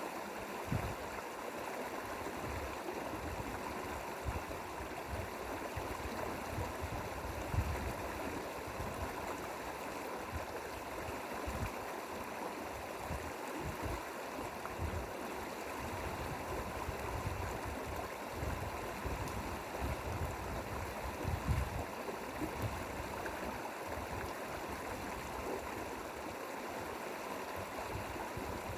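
Mountain valley stream flowing over rocks: a steady, continuous rush of water with irregular low rumbles underneath.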